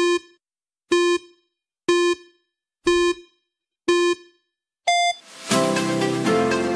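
Countdown timer sound effect: five short electronic beeps one second apart, then a single higher-pitched final beep. Upbeat electronic music starts right after it, near the end.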